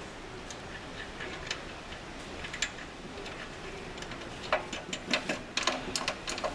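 Light metal clicks and clinks of nuts and washers being fitted and tightened on the assist arm's mounting bolts, scattered at first, then coming quickly and louder in the last two seconds.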